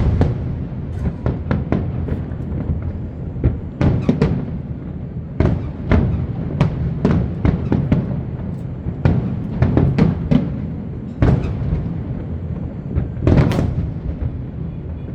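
Fireworks display: shells bursting in rapid, irregular succession over a steady low rumble, with a dense cluster of bangs near the end. Music plays underneath.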